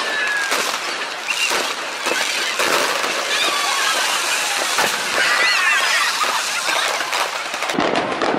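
Fireworks display bursting and crackling in rapid succession: a dense run of sharp bangs and pops over a continuous crackle.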